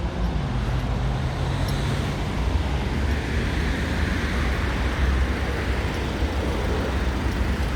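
Road traffic driving past close by: a steady rumble of car engines and tyres on the roadway. One engine's hum stands out in the first couple of seconds, and tyre hiss swells in the middle as a vehicle passes.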